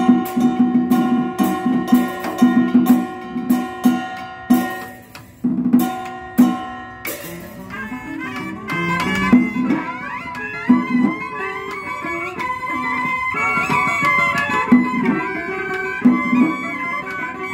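Vietnamese Cao Đài ceremonial ensemble (nhạc lễ) playing an instrumental piece: plucked zither and lute notes with percussion strokes in a steady beat, then about seven seconds in a reed horn and two-string fiddle take up a sustained melody with sliding pitches.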